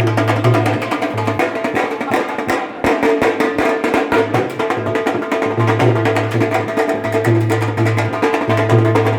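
Loud lively music driven by fast, sharp percussion with a steady beat and a low note that pulses on and off.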